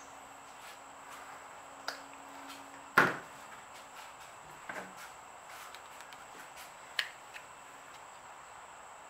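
A few sharp clicks and knocks as an acrylic paint tube and a paint bottle are handled on a folding table. The loudest knock comes about three seconds in, when the tube is put down on the tabletop. A sharper click near the end comes as the next bottle is picked up.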